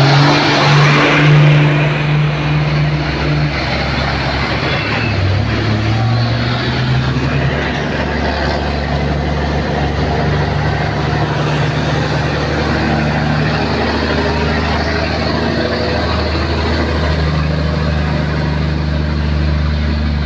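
Diesel engines of loaded heavy trucks passing close by one after another, a steady low engine note, loudest in the first two seconds, that dips and rises in pitch briefly about five seconds in.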